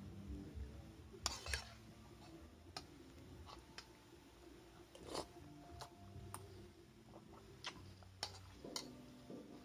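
A metal spoon clicking lightly against a ceramic soup bowl, about a dozen scattered clicks, with quiet eating and sipping sounds.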